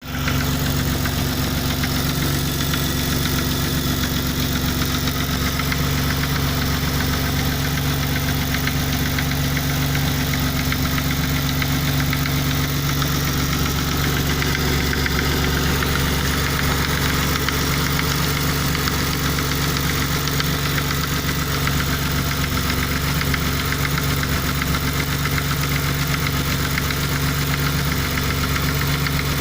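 Nissan VQ30DET 3.0-litre turbocharged V6 idling steadily with a clattering knock whose cause the owner cannot place.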